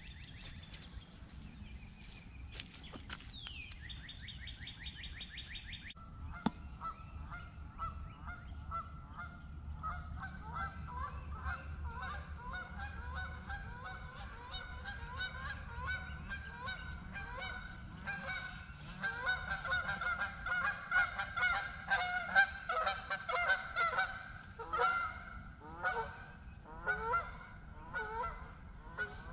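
A small songbird chirps, then from about six seconds in a flock of geese starts honking, many calls overlapping and building to a loud chorus before thinning out near the end. The flock is upset and being scared off.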